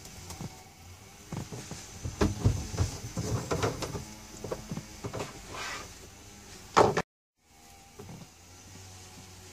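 Clear plastic tubing and a plastic fuel can being handled: irregular rustles, knocks and clicks, busiest in the middle. A sharp knock comes just before a brief break in the sound.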